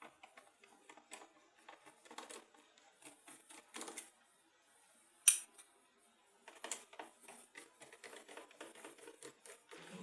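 Screwdriver working screws out of a laptop's plastic bottom panel: a run of small, irregular clicks and scrapes, with one sharper click about five seconds in.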